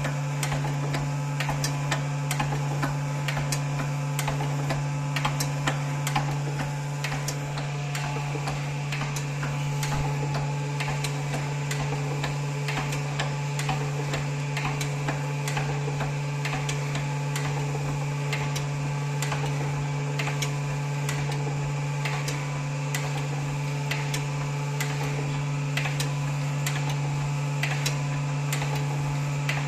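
TOS BRH 20A machine running with its repaired and upgraded hydraulic system: a steady low hum with many small irregular ticks and clicks over it.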